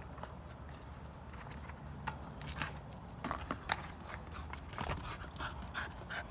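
Pit bull puppy tussling with a tyre hung on a rope: scattered short scrapes, knocks and small puppy noises, more of them from about two seconds in.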